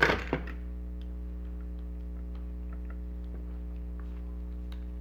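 Two sharp knocks right at the start, then faint scattered ticks and clicks over a steady electrical hum.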